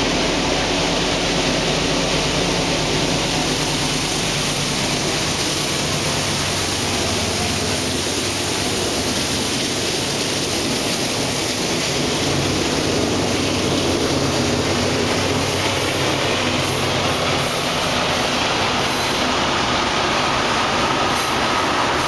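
Freight train passing at close range. For the first several seconds the low hum of the GE AC44CW diesel locomotives is heard under the rail noise. After that come steady wheel and rail noise from covered hoppers and tank cars, with a faint high wheel squeal near the end.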